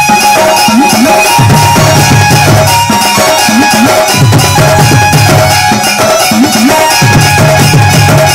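Electronic keyboard played live and loud through an amplifier: a sustained melody over a steady drum beat, with a bass figure that comes back about every three seconds.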